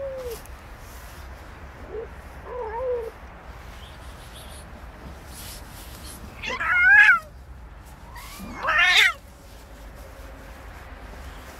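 Cat caterwauling while a tom pins a smaller tabby down by the scruff. A short, low, wavering cry comes about two seconds in, then two loud, wavering yowls follow about six and a half and nine seconds in.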